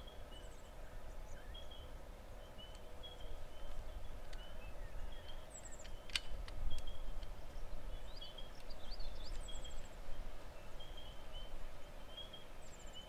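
Wild birds chirping and trilling on and off over a faint low background rumble, with one sharp click about six seconds in.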